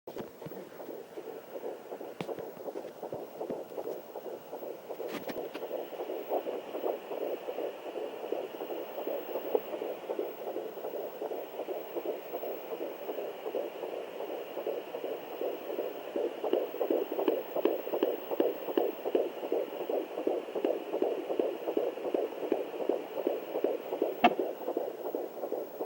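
Sonoline B fetal Doppler playing a fetal heartbeat through its speaker as rapid, evenly repeating whooshing pulses, growing somewhat louder past the halfway point. A few sharp clicks sound over it, the loudest near the end.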